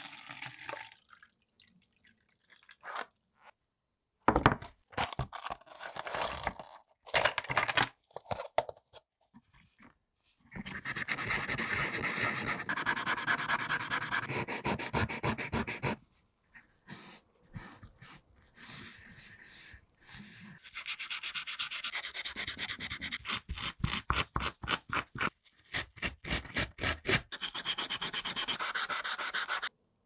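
Metal insert of a Zippo lighter scrubbed by hand with an abrasive, in two long stretches of fast back-and-forth rubbing strokes. Between them come scattered clicks and taps of handling. At the very start, liquid pours into a plastic cup.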